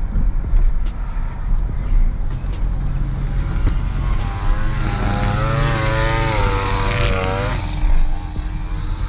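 Car cabin noise while driving slowly: a steady low road and engine rumble. From about four to seven and a half seconds in, a louder wavering engine-like tone with hiss rises and then falls away.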